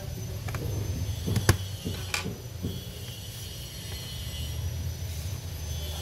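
Steady low background hum with a few sharp clicks and light knocks from hands and small parts handled on an opened laptop chassis, the loudest click about a second and a half in.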